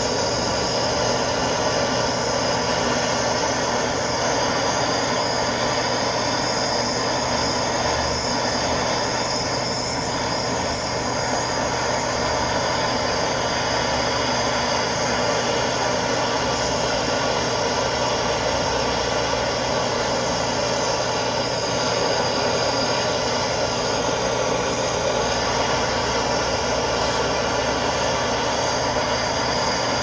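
Handheld gas torch burning with a steady rushing noise as it dries a clay lid turning on a pottery wheel, with a low steady hum from the running wheel.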